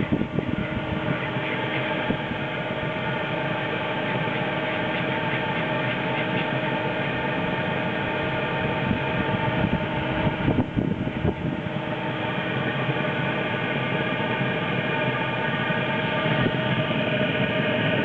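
Chinese diesel air heater running, its blower motor whirring steadily, with several steady hum tones over a rough rumbling noise. The sound dips briefly about ten and a half seconds in.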